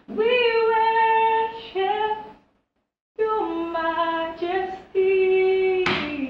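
A young woman singing a gospel freestyle unaccompanied, holding long notes that slide between pitches, with a brief silent break midway. Near the end, hand claps begin.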